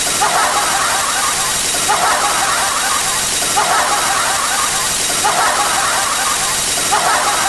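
A repeated sound effect: a shrill, squealing chatter that comes back about every second and a half over a steady loud hiss, five times in all.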